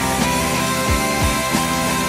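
Background instrumental rock music with guitar and a steady drum beat.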